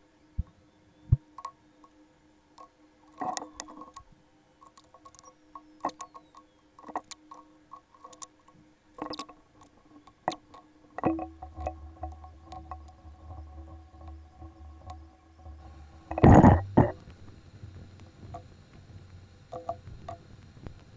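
Hand-stitching leather: scattered small clicks and rustles as a needle and thread are pushed and pulled through punched holes in the leather, with one louder brief rustle or knock about 16 seconds in. A faint steady hum lies underneath.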